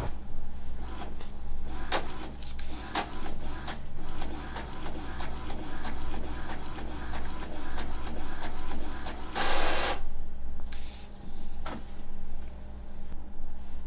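Inkjet printer printing a photo: a steady run of clicks and whirring as the print head moves and the sheet feeds out, with a louder whir about nine and a half seconds in.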